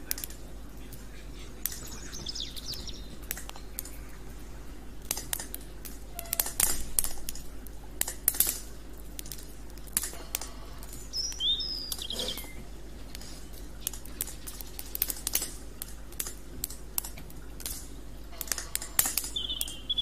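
Wood campfire crackling and popping, with irregular sharp snaps and a few louder pops. Short high bird chirps come through about two seconds in, again around eleven seconds in, and near the end.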